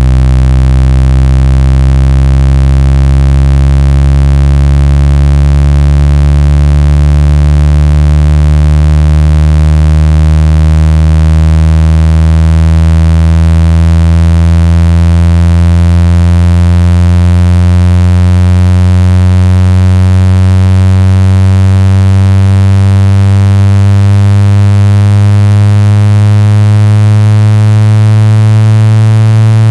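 Loud synthesized speaker-cleaning tone: a deep buzzing note with many overtones that slowly rises in pitch, meant to vibrate a phone speaker's membrane to push out water and dust.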